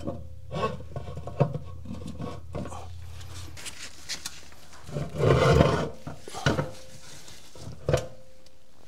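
Metal transmission internals being handled by hand: scattered clunks and scrapes as the drum and output shaft assembly are worked loose inside the 6L90E case, with one louder, longer scrape about five seconds in.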